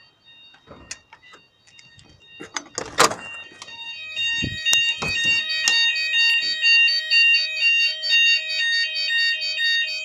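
Fire alarm base sounders going off in a weekly test, an alternating two-tone alarm tone repeating evenly. It is faint at first and loud from about four seconds in, with a loud knock about three seconds in.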